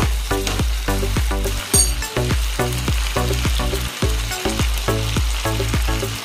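Pork belly sizzling in soy sauce in a wok, stirred with a wooden spatula, under background music with a quick, steady beat.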